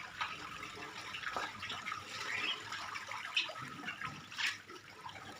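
A starling (jalak) chattering: a run of short, irregular rasping and clicking notes.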